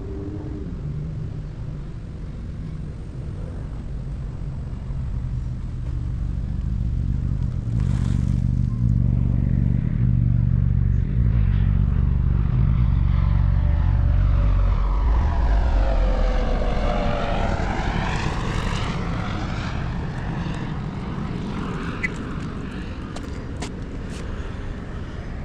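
Propeller airplane flying over: its low drone builds to its loudest around the middle and then fades away. A few sharp clicks near the end.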